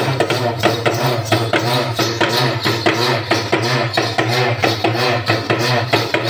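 Urumi drums playing a fast Devarattam rhythm: quick stick strokes with a moaning pitch that swoops up and down about twice a second over a steady low hum.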